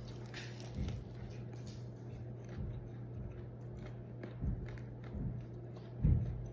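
Biting and chewing a crispy Korean fried chicken wing close to the microphone, with irregular crunchy crackles and a few soft low thuds.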